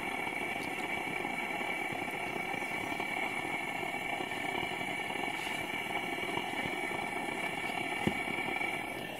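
A steady engine-like drone, holding one pitch and level.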